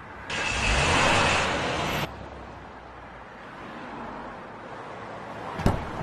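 Road traffic: a vehicle rushing past loudly for nearly two seconds, then quieter roadside noise, with one sharp knock near the end.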